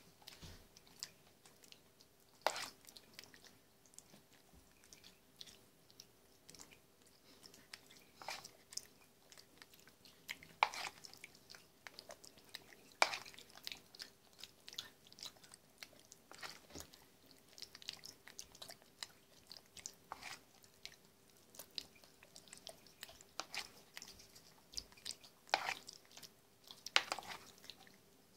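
Javan macaque eating soft puree from a plastic spoon: irregular sharp clicks and wet smacks of the spoon against the plastic bowl and teeth, with mouth and chewing sounds.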